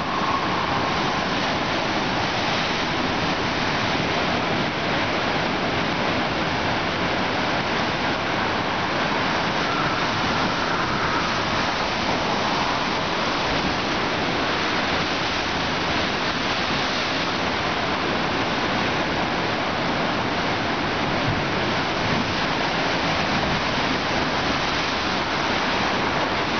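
Ocean surf at high tide breaking and churning among rocks and through a narrow chasm, a steady rushing noise without distinct separate crashes.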